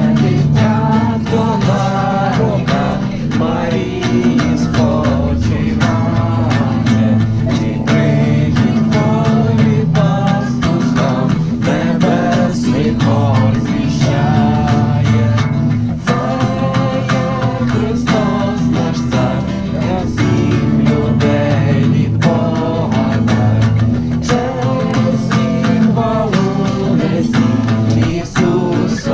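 A group of carolers singing a Ukrainian Christmas carol (koliadka) to a strummed acoustic guitar, with a steady strumming rhythm.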